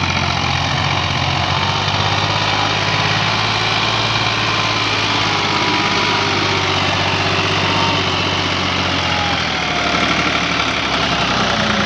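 Farm tractor's diesel engine running hard and steadily while hauling a heavily overloaded trolley, its front wheels lifting off the ground under the load. The engine's note shifts slightly near the end.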